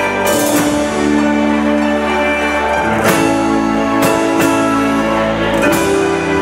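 Live band playing an instrumental passage: electric bass, held chords and drums, with several sharp drum and cymbal hits.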